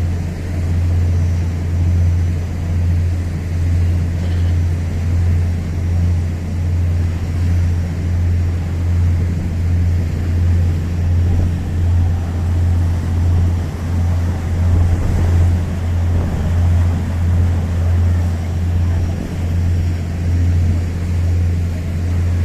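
Excursion boat's engine droning steadily as a deep hum, heard on board, swelling and easing about every two seconds.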